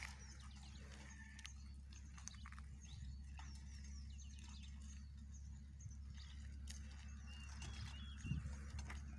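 Small birds chirping faintly in the background, many short rising and falling calls, with a few scattered clicks and a low thump near the end.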